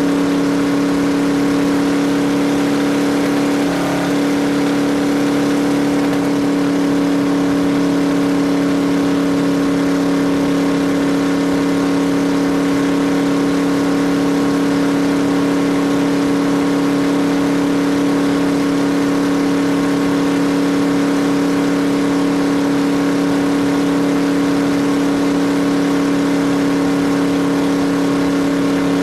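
Off-road race vehicle's engine running at a constant pitch, a steady drone that barely changes, with a brief dip about four seconds in.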